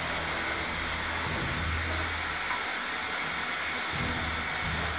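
Water running steadily into a bathtub from the tap or shower, an even rushing hiss, with a low hum underneath.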